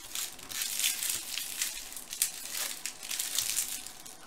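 Wrappers of 2016 Topps Chrome baseball card packs crinkling as the packs are handled, in a run of short, irregular, high-pitched rustles.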